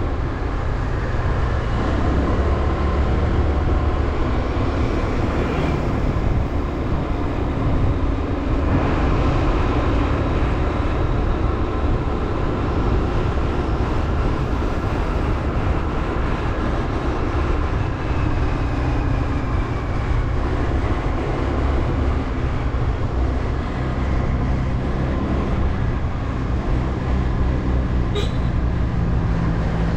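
Motorbike running steadily while being ridden, a dense low rumble. There is a short click near the end.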